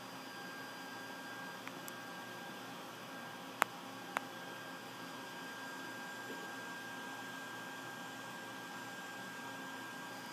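Steady low hiss and hum of room noise with a faint high tone, broken by a few sharp clicks: a small one near the start and two louder ones half a second apart a little before halfway.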